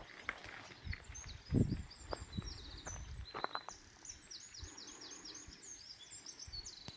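Small songbirds chirping, with rapid runs of short, falling notes that grow busier in the second half. Footsteps thud on a path underneath, the heaviest about a second and a half in.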